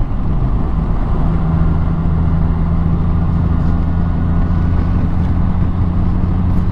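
Honda Gold Wing GL1800B's flat-six engine running steadily at road speed, under wind and road noise. Just after the start the engine note drops, then holds steady at a lower pitch.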